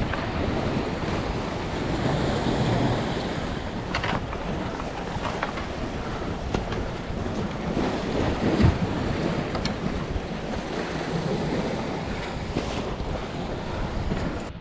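Wind buffeting the microphone over the wash of sea surf, with a few light knocks.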